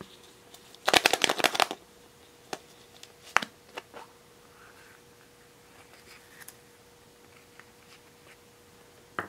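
Hard plastic surprise egg being handled and pried open by hand: a quick burst of rapid clicking and rattling about a second in, then a single sharp click a couple of seconds later, and a few lighter taps of fingers on plastic.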